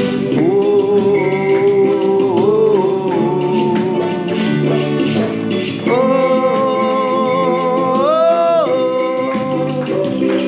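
Samba song with a Caribbean feel: the band plays a melodic passage of long held notes over percussion, the melody stepping up in pitch near the end.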